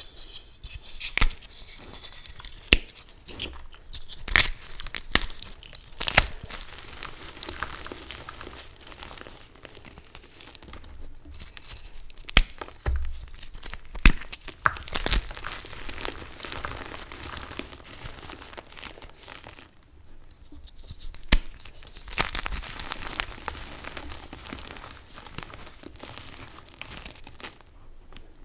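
Hands crushing crunchy dyed Chalklate gym chalk blocks: continuous crumbling and crunching of chalk and powder under the fingers, with sharp snaps now and then as pieces break.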